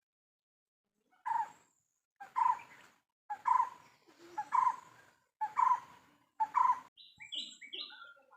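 A bird calling six times in a row, about one call a second, each a short note run into a longer one. A quick cluster of higher, shorter chirps follows near the end.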